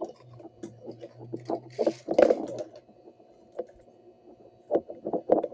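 Irregular small clicks, taps and scrapes of the relay's circuit board and soldering tools being handled on a bench, with a louder knock and scrape about two seconds in, over a low hum that comes and goes.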